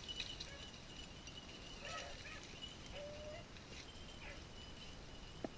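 Beagles giving a few faint, short yips and barks, spaced about a second apart, as they work a cottontail rabbit's scent.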